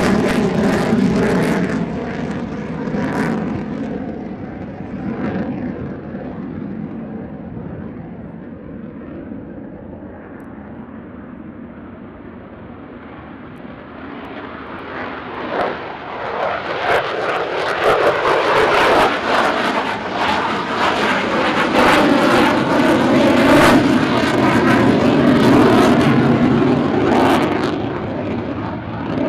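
F-35A fighter jet's single engine roaring on takeoff, fading as the jet climbs away. The roar then builds again to a loud, rough jet noise with a droning howl as an F-35 passes overhead, easing off near the end.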